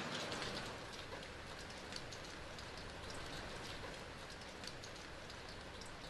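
Steady rain falling, a continuous hiss dotted with many small drop ticks, a little heavier in the first second.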